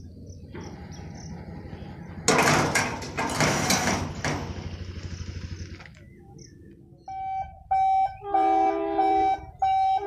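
Railway level-crossing boom barrier being lowered, its mechanism clanking loudly for about two seconds, then a rapid ticking that fades. From about seven seconds in, a train horn sounds in loud repeated blasts.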